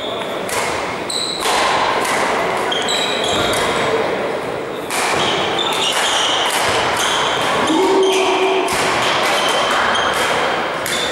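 Badminton rally in a sports hall: sharp racket hits on the shuttlecock and short shoe squeaks on the court floor, over a steady din of hall noise.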